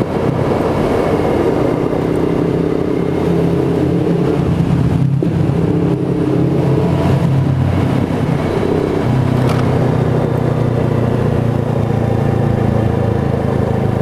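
Honda Gold Wing 1800's flat-six engine running steadily at riding speed, with a hiss of road and wind noise over it; the engine note shifts about two-thirds of the way through.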